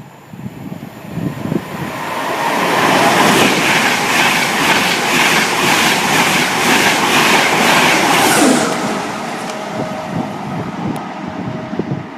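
A train passing through at speed, its wheels clattering over the rail joints in a quick even rhythm, then dying away as it goes by.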